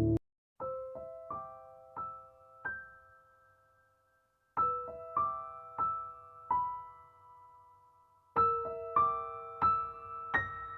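Background music: a gentle electric piano plays three short phrases of single notes, each note ringing out and fading, with brief silent pauses between the phrases.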